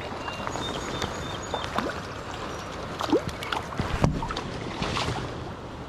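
Steady rush of a shallow creek running over riffles, with splashing and small knocks as a hooked wild brown trout is landed by hand in the shallows. One louder thump comes about four seconds in.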